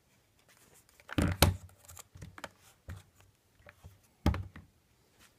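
Handling noise from a Keysight U1231A handheld multimeter in its rubber holster being picked up and moved: a cluster of knocks and clicks about a second in, lighter scattered clicks, and another sharp knock a little after four seconds.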